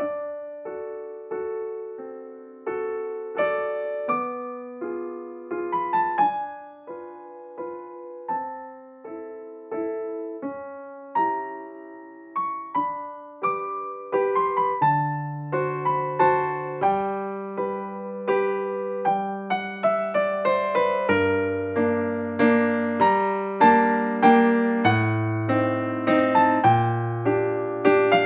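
Background music: a gentle solo piano melody, with low bass notes joining about halfway through.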